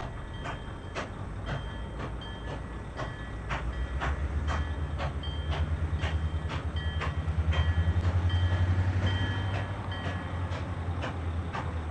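Nickel Plate Road 765, a Lima-built 2-8-4 Berkshire steam locomotive, working slowly with steady exhaust chuffs about two a second. A low rumble swells in the middle and fades again.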